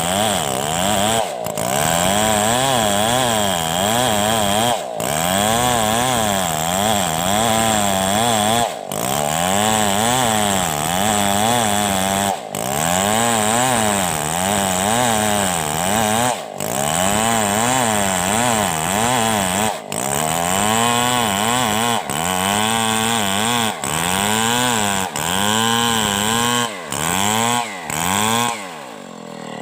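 Two-stroke chainsaw at high revs cutting through a coconut palm trunk, its engine note sagging and picking back up again and again as it works in the cut, with short breaks every few seconds. Near the end the revs fall away.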